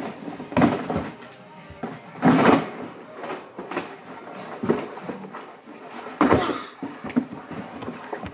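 A cardboard box being smashed and torn apart: a string of noisy crunching and ripping bursts with thumps, roughly one every second, the loudest a little over two seconds in.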